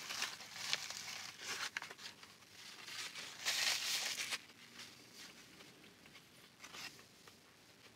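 Paper sandwich wrapper crinkling in the hands during a bite of sandwich, then a longer paper rustle from a napkin wiped across the mouth about three and a half seconds in. The last few seconds are quieter.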